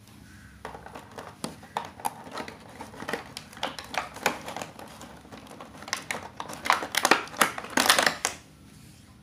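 Black plastic toy train track sections clicking and rattling against a thin moulded plastic packaging tray as they are pressed into its slots, with the tray crinkling. The clatter starts about half a second in, is loudest in the last couple of seconds, and stops shortly before the end.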